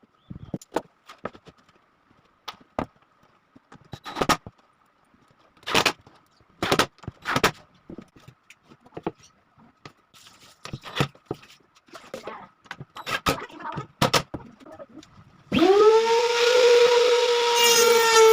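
Wooden pieces knocking and clicking as they are handled, then about three seconds before the end an electric power tool switches on, its motor quickly winding up in pitch and then running steadily.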